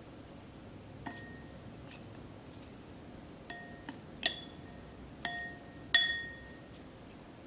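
Chopsticks clinking against a white ceramic bowl while tossing sliced beef in dressing: about six light clinks spread over the seconds, each with a short ring, the loudest about six seconds in.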